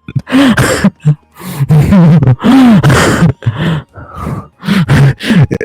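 A man's wordless vocal sounds into a close microphone: a run of loud groans and drawn-out exclamations, each rising and falling in pitch, with short breaks between them.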